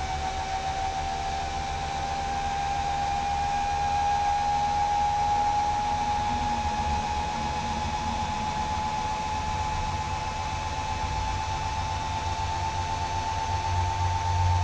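Rebuilt electric motor and hydraulic pump of a 1968 Oldsmobile Cutlass convertible top running. It gives a steady whine that slowly rises in pitch while the hydraulic cylinders move the top, with a low hum underneath.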